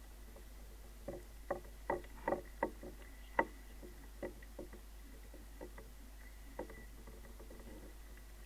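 Soft clicks and knocks of a cough-syrup box and bottle being handled and opened underwater: a quick run of about eight, then a few scattered ones.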